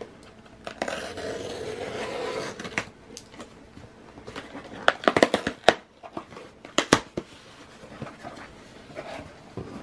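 Packing tape on a cardboard shipping box being slit with a small cutter, a continuous scrape for about two seconds, then sharp crackles and knocks of cardboard as the box flaps are pulled open.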